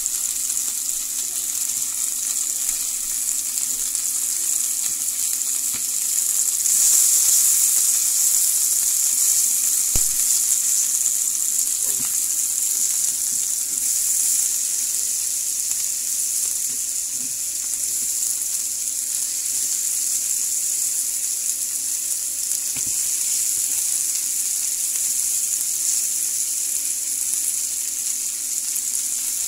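Lamb chops and diced potatoes sizzling in oil and butter in a frying pan, a steady hiss that swells for a few seconds about a quarter of the way in. A few faint knocks sound now and then.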